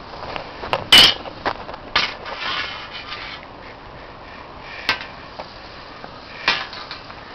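Handling knocks and scrapes: a handful of sharp knocks and clicks, the loudest about a second in, with a short scraping rush between two and three seconds in.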